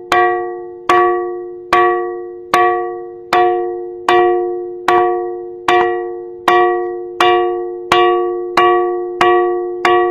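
A ringing rock, the 'bell rock', struck over and over, about once every 0.8 s and a little faster near the end. Each strike gives a clear bell-like ring of several steady pitches that fades before the next.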